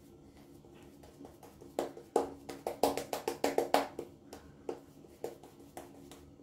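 Synthetic-knot shaving brush working lather over a lathered face: a run of quick, wet brush strokes, about four or five a second, loudest in the middle, then a few slower strokes near the end.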